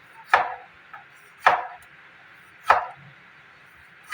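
Kitchen knife slicing through a cucumber onto a cutting board: a slow, even chop about once every second and a bit, three strokes with a fourth at the very end.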